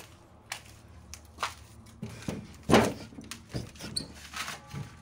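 Irregular knocks and thumps from footsteps and handling on a debris-strewn floor, one heavy thud about three seconds in standing out as the loudest.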